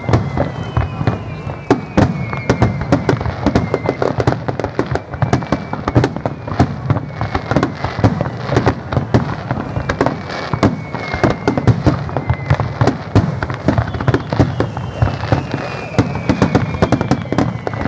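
Fireworks display in a rapid barrage: many shell bursts banging close together with crackling, and several whistles sliding down in pitch over it.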